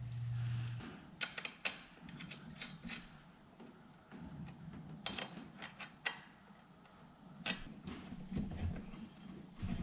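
Scattered light clicks and knocks of hand work on a combine's header reel, a few a second at most, after a short low hum at the very start.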